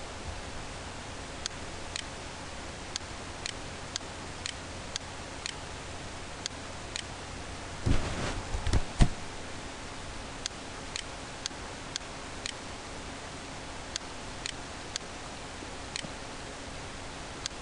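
Computer mouse clicking: single sharp clicks, often about half a second apart, over a steady hiss. A short burst of louder rustling and low thumps comes about eight to nine seconds in.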